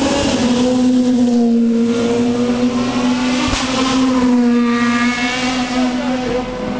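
Engines of sports-car racing cars at high revs on the circuit, a loud, steady note whose pitch wavers slightly and swells twice as cars come through.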